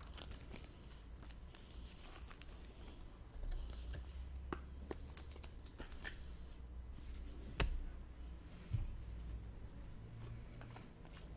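Trading cards being handled: scattered soft clicks and light scrapes of cards and plastic card holders, with a few sharper ticks.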